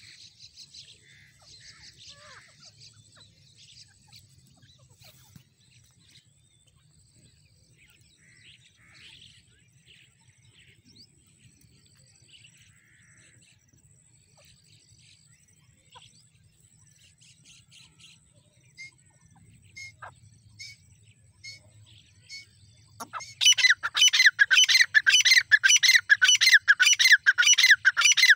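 Grey francolins calling: soft, scattered short chirps for most of the stretch, then, near the end, a loud, fast repeated call of about five notes a second that goes on without a break.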